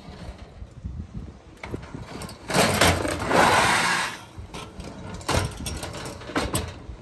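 Toy trucks rolling down perforated wooden pegboard slopes, their wheels giving a steady low rattle. In the middle a much louder rushing noise rises for about a second and a half, and a few sharp clicks come near the end.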